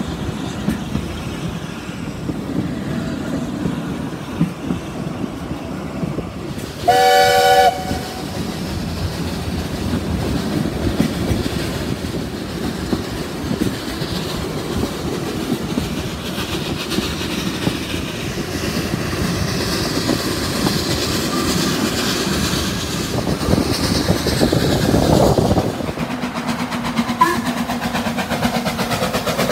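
Narrow-gauge steam train heard from inside a moving carriage: wheels rumbling and clattering steadily on the rails, with one short, loud blast of the locomotive's steam whistle about seven seconds in. Near the end the sound switches to the lineside sound of an approaching steam locomotive.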